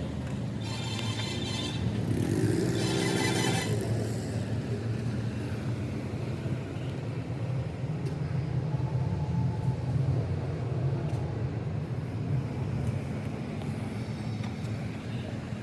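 An engine running steadily with a low rumble. In the first few seconds two louder, higher-pitched stretches rise over it, one with a short upward glide.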